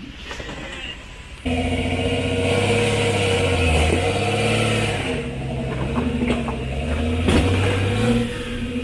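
Off-road 4x4 engine running and revving, its pitch rising and falling. It comes in louder about a second and a half in, with a sharp knock near the end.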